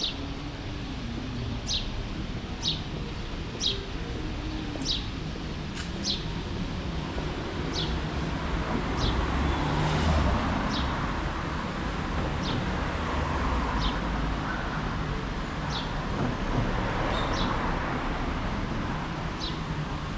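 A bird's short, high chirps repeating every second or two over a steady low hum of city traffic. A vehicle passes, swelling and fading about ten seconds in.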